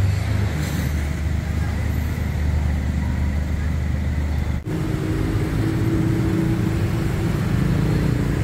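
Street traffic: car and motorbike engines running in slow, heavy traffic. A low engine drone stops at a brief dropout about halfway, after which a somewhat higher engine hum takes over.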